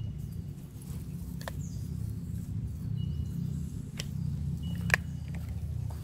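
Outdoor ambience: a steady low rumble with a few sharp clicks, the loudest about five seconds in, and short, thin high chirps.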